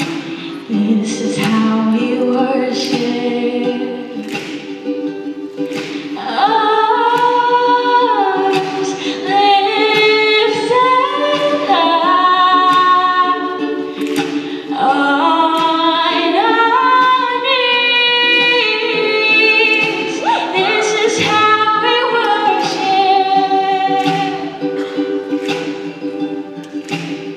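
Female vocalist singing a slow worship song in long held notes, accompanied by strummed acoustic guitar.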